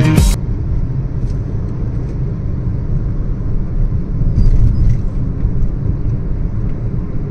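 Steady low rumble inside a moving Hyundai car: engine and tyre noise heard from the driver's seat while cruising, with a few faint clicks about four to five seconds in.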